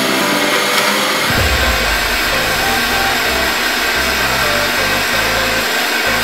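Electronic dance music: a dense, bright synth track with a stepping bass line that comes in heavily about a second in.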